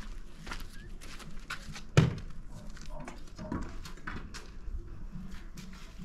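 A single sharp knock about two seconds in, among faint scattered clicks and handling noise.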